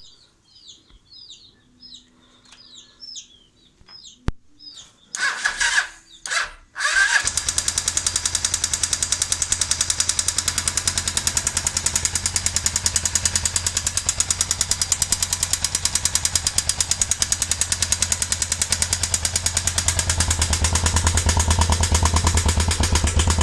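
Suzuki GS500 air-cooled parallel-twin engine cranked by its starter in a few short tries, catching about seven seconds in and idling with a rapid, even clatter. The clatter is the strange engine noise the owner cannot trace.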